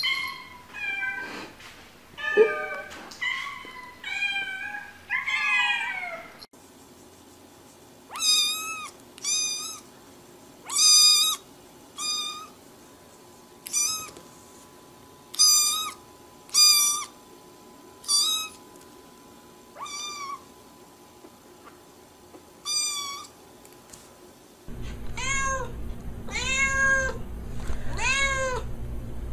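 Cats meowing over and over: short, high meows about once a second through the middle, with a steady low hum under the meows near the end.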